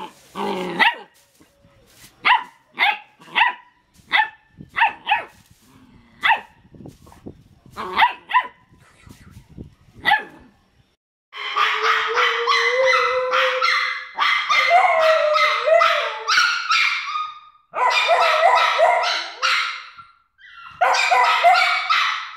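A German Shepherd puppy gives a string of short, high barks. From about 11 seconds in, a Jack Russell terrier and a second small dog howl in long, wavering calls, broken off twice briefly.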